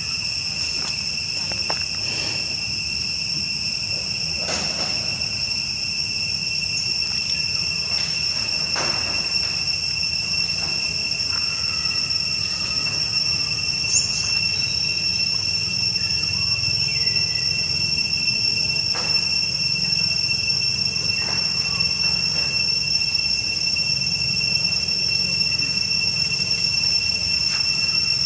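A steady, high-pitched insect drone, a chorus of cicadas or crickets in the trees, holding an unbroken tone, over a low steady rumble with a few faint scattered clicks.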